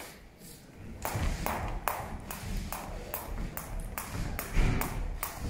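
Skipping rope slapping the boxing-ring canvas in a quick, even rhythm, about three sharp slaps a second, starting about a second in.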